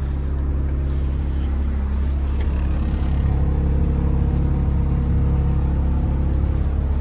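Komatsu PC160LC-7 excavator's diesel engine running steadily with a low hum, heard from inside the cab.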